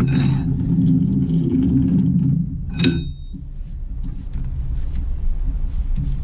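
Heavy metal being worked by hand: a low rumbling scrape for about two and a half seconds, then one sharp metallic clink that rings briefly about three seconds in, followed by a quieter rumble.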